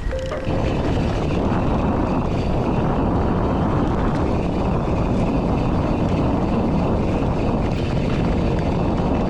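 Steady rush of wind over the microphone mixed with mountain-bike tyres rolling on a dirt trail while riding.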